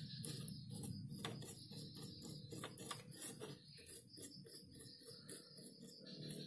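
Brush scrubbing the solder joints on a TV circuit board, faint scratchy strokes repeating a few times a second, cleaning around a freshly soldered voltage-regulator IC.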